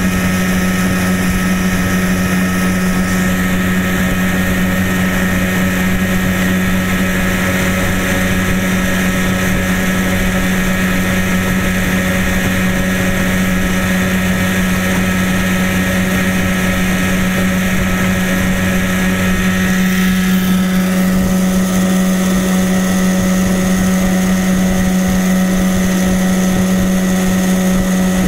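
A 1991 Johnson 9.9 hp two-cylinder two-stroke outboard running steadily at speed, pushing a small aluminium boat, with water rushing along the hull. The engine drone holds one steady pitch, growing a little louder and brighter about twenty seconds in.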